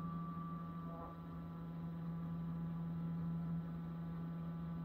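CNC router's axis stepper motors giving a steady hum as the machine creeps the tool slowly toward the part edge during an electronic probing move.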